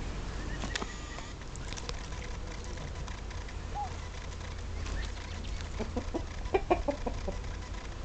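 Muscovy duck foraging in soil, with a few sharp bill clicks in the first couple of seconds, then a quick run of short, soft calls about six seconds in. A low rumble runs underneath.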